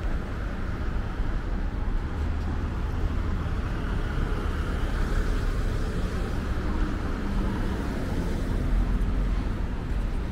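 Street traffic noise: cars running past on a busy city street, a steady low rumble with no single event standing out.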